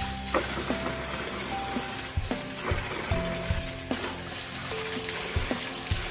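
Water pouring from a tap into a plastic bucket, splashing over hands being washed under the stream. Background music with a simple melody plays over it.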